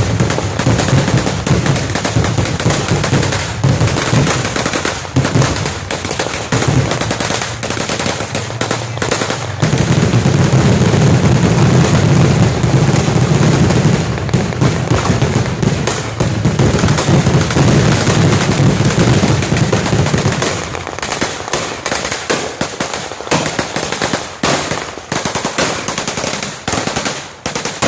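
Several guns firing blanks in rapid, overlapping bursts of machine-gun fire, a dense continuous barrage. After about 20 seconds it thins to separate bursts and single shots with gaps between.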